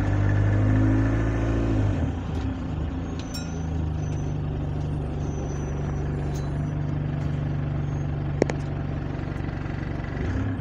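Single-deck bus engine running, heard from inside the passenger cabin: the engine note drops about two seconds in and then settles into a steady hum. A single sharp click about eight seconds in.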